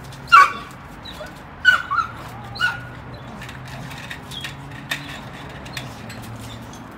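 A dog giving four short, high-pitched cries: a loud one right at the start, then three more about a second and a half to two and a half seconds in. A few faint ticks follow.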